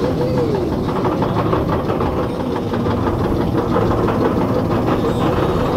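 Amusement-park ride train running on its rails: a loud, steady rumble with a fast clatter of wheels on track.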